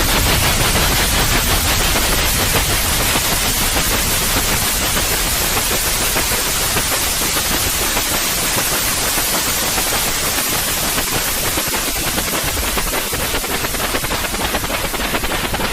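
Steady, loud white noise: an even, grainy hiss spread across all pitches, of the kind played to soothe colicky babies to sleep.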